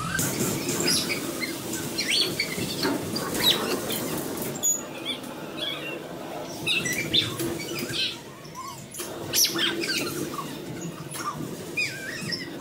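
Bumper car ride running: a steady electric hum with many short, high, irregular squeaks and chirps over it.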